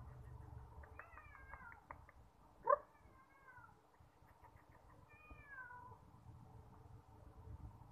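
A cat mewing softly, three short mews that rise and fall in pitch, the loudest about three seconds in.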